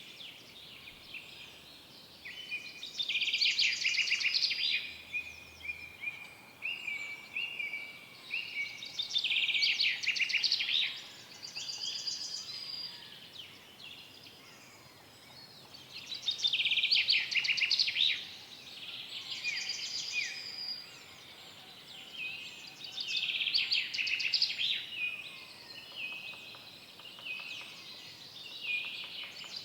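Several forest songbirds singing: fast trilled song phrases a second or two long come every few seconds, with softer whistled notes between them, over a faint steady background hiss.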